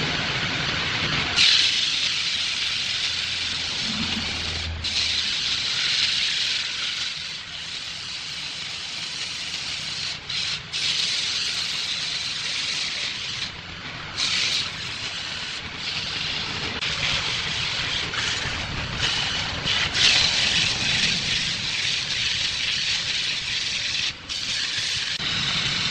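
Abrasive sanding-belt strip hissing against a wooden vase spinning on a lathe, with the lathe's motor humming underneath. The hiss cuts out briefly a few times.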